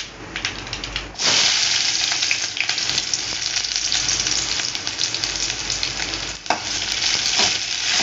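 Chopped onions tipped into hot coconut oil and mustard seeds in an aluminium kadai start a loud, steady sizzle about a second in. The sizzle keeps on while they are stirred with a spoon, with a knock of the spoon on the pan about two-thirds of the way through.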